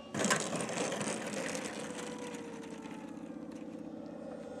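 Small engine of a radio-controlled model airplane idling steadily, one tone sagging slightly in pitch about two seconds in. A sudden loud burst of noise at the very start fades away over about a second.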